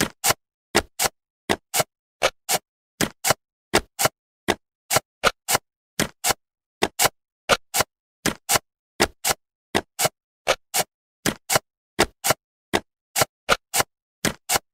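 Jigsaw-puzzle piece click sound effects: short sharp clicks, about two or three a second with silence between, one as each piece snaps into place.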